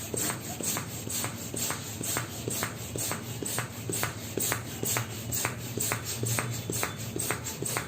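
Background music with a steady quick beat: a crisp tick about four times a second over a low, steady bass.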